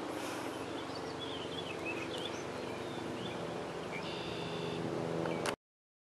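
Pond-side outdoor ambience: a steady low hum with scattered short, high bird chirps and peeps, and a brief higher call near the end. The sound cuts off abruptly about five and a half seconds in.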